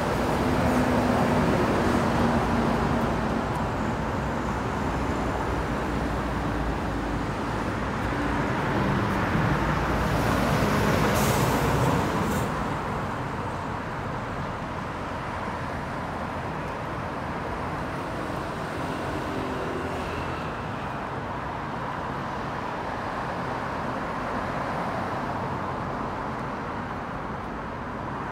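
Road traffic on a city street: vehicles passing as a steady wash of noise, louder for the first dozen seconds and then easing off, with a short hiss about eleven seconds in.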